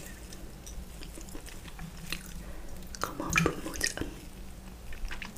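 Soft, wet close-up eating sounds: mouth chewing and a wooden spoon moving through a bowl of noodle-soup broth, with scattered small clicks and drips. A busier, louder stretch comes about three seconds in.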